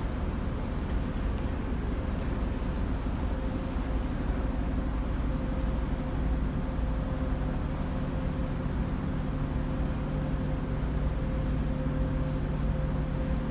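Steady drone of large-ship machinery on deck while under way: a few constant hum tones over a low rumble.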